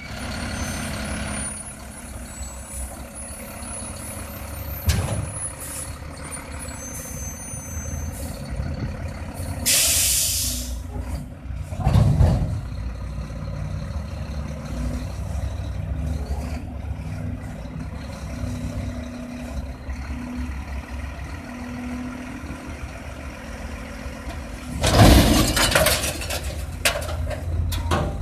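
Front-loader garbage truck's diesel engine running as it works a dumpster with its front forks and lifts it overhead. A burst of air-brake hiss comes about ten seconds in and a longer, louder hiss near the end, with a heavy thump about twelve seconds in.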